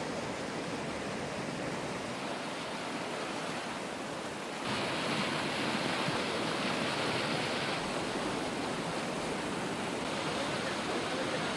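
Rushing, churning canal water flowing steadily. It gets louder about four and a half seconds in.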